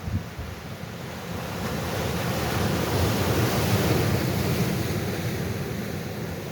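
Sea waves surging: one swell builds to a peak about halfway through and then draws back, with a rumble of wind on the microphone underneath.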